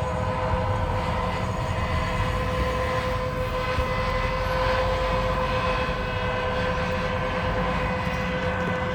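Large articulated seeding tractor pulling an air drill in the field: a steady mechanical whine of a few fixed tones over a low rumble.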